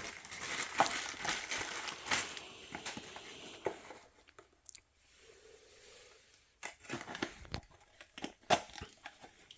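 A parts package being unboxed by hand: packing tape tearing and wrapping crinkling, rustling steadily for about four seconds, then a quieter pause, then sharp crackles and clicks.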